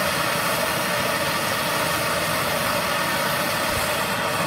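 MAP gas torch flame burning with a steady, even hiss.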